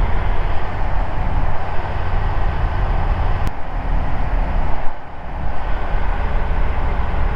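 Ikarus C42B microlight's Rotax 912 four-cylinder engine and propeller running steadily in cruising flight, with a single click about three and a half seconds in and a short dip in level about five seconds in.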